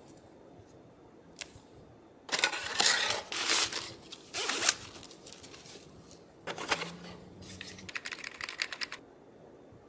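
Box packaging being handled and opened: a few seconds of scraping and rustling, a knock, then a quick run of small clicks.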